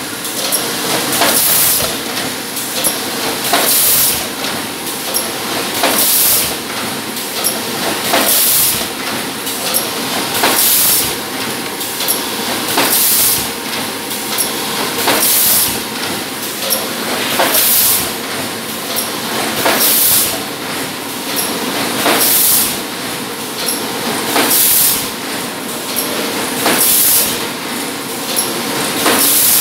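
PET bottle blow-moulding machine running in production: a loud burst of compressed-air hiss a little over every two seconds as each blow cycle vents its air, over steady machine running noise and light clicks.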